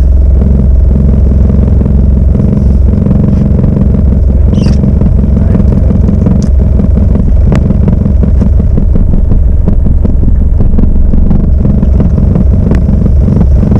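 A loud, steady low rumble throughout. A few brief clicks and a short high squeak about four and a half seconds in.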